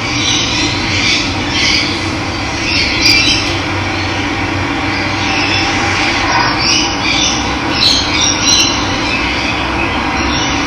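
Running water rushing steadily, with birds calling in short repeated bursts over it.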